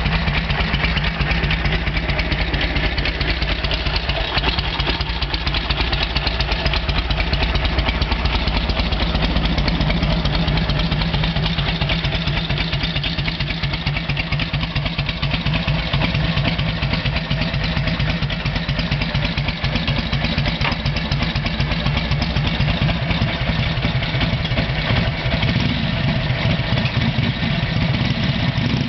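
1942 Harley-Davidson WLA's 45 cubic inch flathead V-twin idling steadily with an even, rapid beat.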